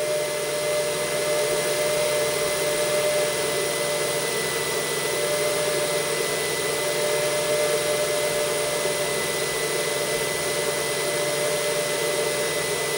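Titan Aero extruder's stepper motor feeding PLA through the hot end at a steady rate during a 100 mm steps-per-mm calibration extrusion: a constant high whine over a steady fan-like rush.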